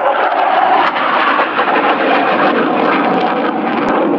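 Jet noise from a MiG-29 Fulcrum fighter's twin Klimov RD-33 turbofans in display flight overhead: a loud, steady rush that deepens slightly toward the end. A sharp click sounds just before the end.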